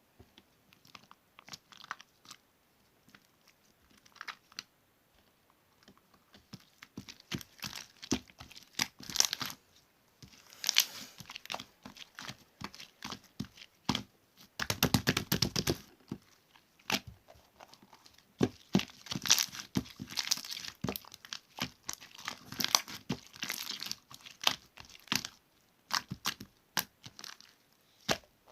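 Slime being squished, stretched and folded by hand, giving irregular sharp clicks, pops and crinkly crackles, with a longer dense crackling stretch about halfway through.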